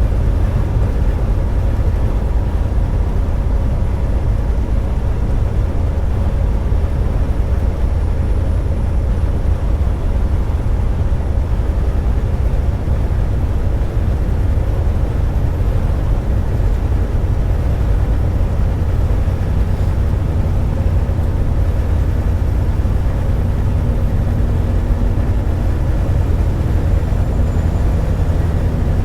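Steady low engine and road noise heard inside a semi-truck's cab at highway speed.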